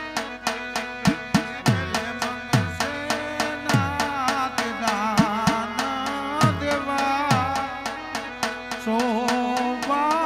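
Indian folk devotional music: tabla with low bass strokes that glide down in pitch, over sharp regular clicks about four a second. A wavering melody line comes in about four seconds in and grows stronger near the end.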